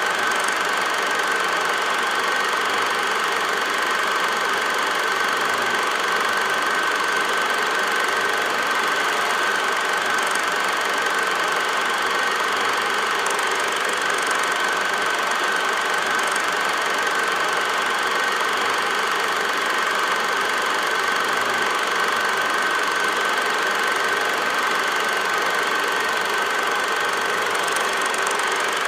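8mm film projector running: a steady mechanical whirr with a constant high whine, the only sound on a silent home movie.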